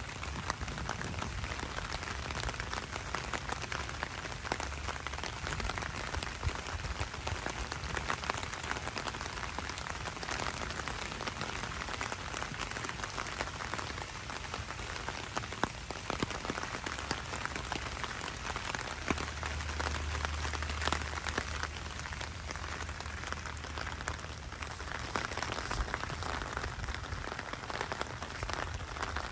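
Steady rain falling on a wet street: a dense hiss with many close drop ticks. A low rumble swells for a few seconds about two-thirds of the way through.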